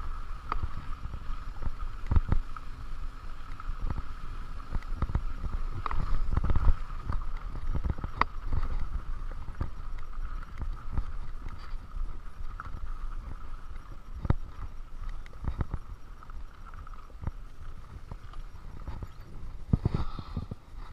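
Mountain bike rolling over a rocky dirt track: a steady low rumble of tyres on dirt and gravel, with irregular knocks and rattles as the bike jolts over stones.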